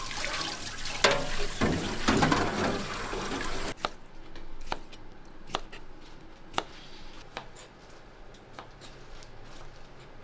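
Water running from a tap, shut off abruptly a little under four seconds in, followed by scattered light clicks and knocks.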